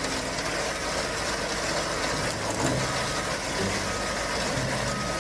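Diesel engines of a concrete mixer truck and a wheel loader running at a work site, with a reversing alarm beeping about once a second from around the middle.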